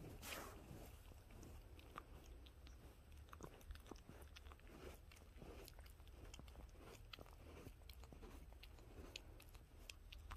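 A small long-haired dog licking a plaid fabric cushion, its tongue and mouth making faint, irregular wet clicks.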